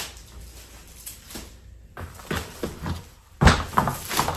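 A wooden picture frame being handled while its plastic protective film is pulled off: scattered crinkles and rubbing, with a sharp knock a little past three seconds in.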